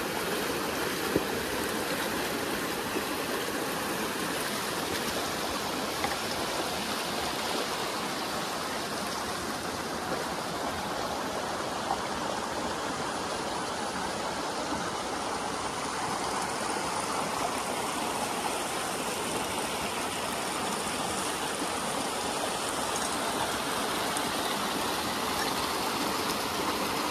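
Water pouring out of a pipe into a shallow stream, a steady rushing and splashing. A few short sharp clicks stand out over it, the first about a second in.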